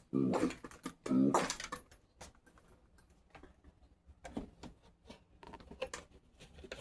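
Two short voice sounds in the first second and a half, then scattered light clicks and taps, like small objects being handled.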